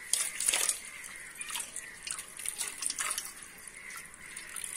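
Water running from a kitchen tap into a stainless steel bowl, splashing irregularly as hands swish and rub leaves in it to wash them.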